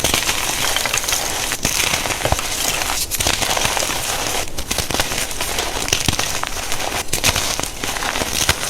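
A reformed block of plain gym chalk being crushed, giving dense, continuous crunching and crackling with a few brief pauses.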